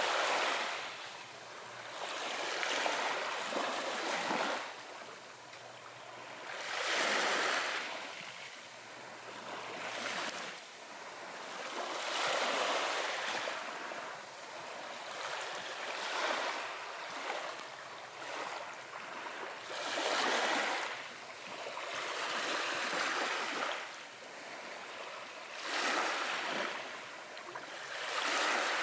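Small waves breaking and washing up a beach, each swelling and fading away again every few seconds.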